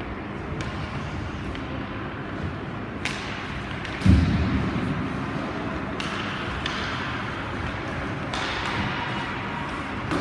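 Ice hockey arena background noise with scattered sharp clicks and knocks, and one heavy thud about four seconds in that rings on briefly.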